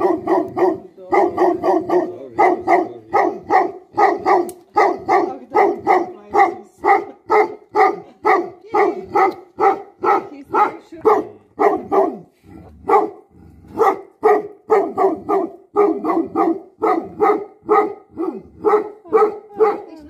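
A dog barking over and over in a steady rhythm, about two barks a second, with a brief pause a little after the middle.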